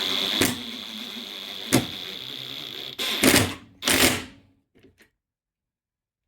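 Cordless drill running steadily with a high whine, broken by two sharp clicks, then two short louder bursts about three seconds in before it stops.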